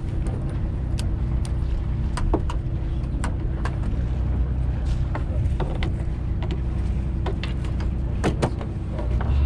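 Fishing boat's engine running with a steady low hum, with scattered light clicks and taps.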